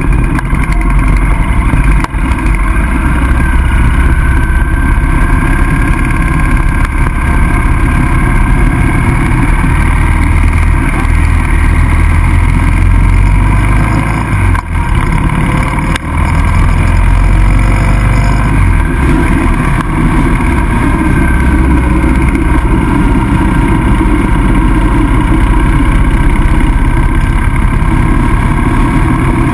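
Cruiser motorcycle riding at road speed: the engine runs steadily under heavy wind rush on the bike-mounted microphone, with brief dips about two seconds in and around the middle.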